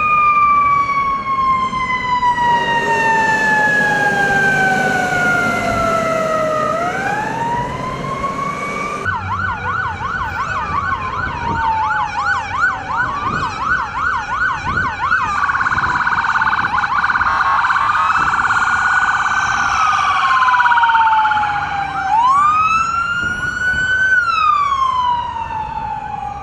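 Emergency vehicle siren wailing, falling and rising slowly. About nine seconds in it switches abruptly to a fast yelp of about two sweeps a second, then returns to the slow wail.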